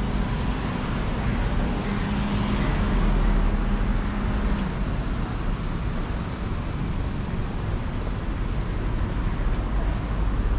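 Street traffic: car engines and tyres running on the road close by, with a steady low hum that stops about halfway through.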